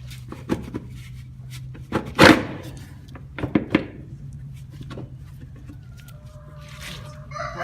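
Several knocks and clunks of parts being fitted and shifted into place while reassembling a Kawasaki Mule utility vehicle, the loudest about two seconds in and a pair more around three and a half seconds, over a steady low hum.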